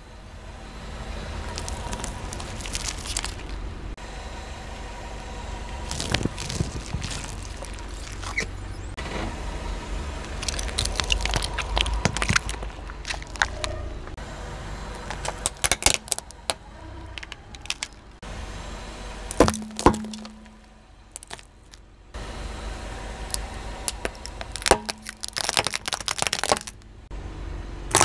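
Car tyre rolling slowly over plastic toys, crushing them with many sharp cracks and crunches over a low, steady engine rumble.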